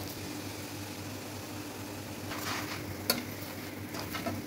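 Paratha frying in ghee on a hot flat tawa: a steady light sizzle, with a spatula scraping as it pushes the paratha around the pan, and a sharp tap about three seconds in.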